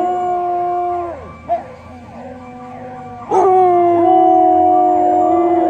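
Several Samoyeds howling together in long, held notes. The howl fades about a second in to quieter, wavering calls, then comes back loudly just after three seconds, with more than one voice at slightly different pitches.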